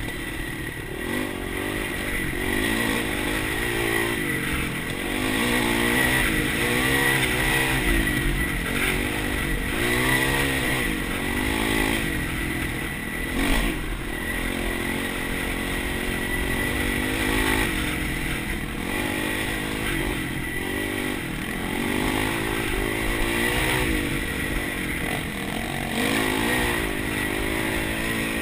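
Dirt bike engine heard from on board the bike, revving up and down over and over as it rides a rough dirt trail.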